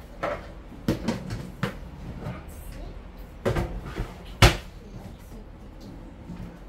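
Kitchen cabinet doors opening and closing and kitchenware being handled: a series of separate knocks and clacks, the sharpest about four and a half seconds in.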